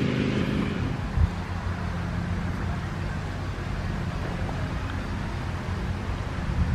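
An engine running steadily at an even pitch, with some wind noise on the microphone.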